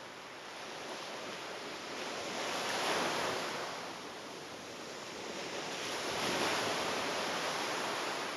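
Waves washing onto a shore, the surf swelling and ebbing twice.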